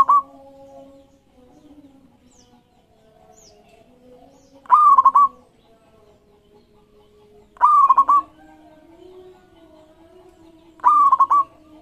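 Zebra dove (local perkutut) cooing: three short, loud phrases about three seconds apart, each about half a second long, with the tail of another phrase right at the start.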